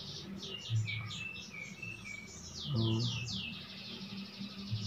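Small birds chirping: quick series of high, falling notes, with a man murmuring a word about three seconds in.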